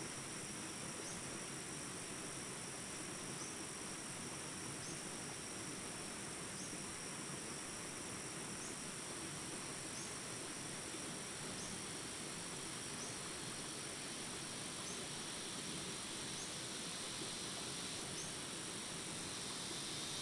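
Jungle ambience track: steady insect trilling over the rush of small rapids, with a faint chirp repeating every second or so.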